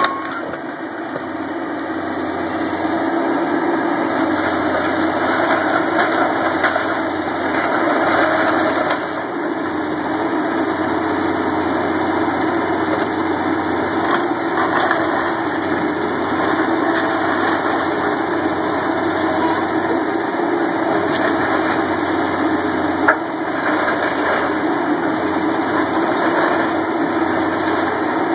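Caterpillar tracked excavator's diesel engine running steadily, with a few sharp knocks from the debris it is handling, the loudest about three-quarters of the way through.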